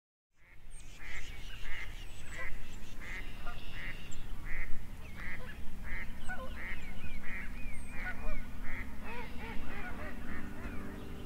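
A flock of geese calling, many overlapping honks in quick succession, starting about half a second in over a steady low rumble.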